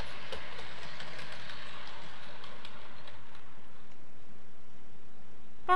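00 gauge model trains running on the layout: a steady electric whir with a few faint, irregular clicks of wheels over rail joints. The whir thins out after about three seconds.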